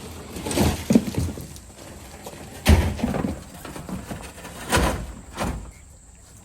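A series of irregular hollow knocks and thumps, about six over a few seconds, the loudest a little under three seconds in, then quieter near the end.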